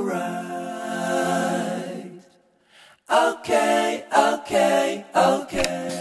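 Song with a singing voice: one long held note, a short break about two seconds in, then shorter sung phrases.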